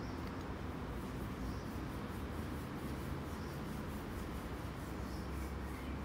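Steady outdoor background noise: a low rumble under a faint hiss, with faint high chirps recurring every second or two.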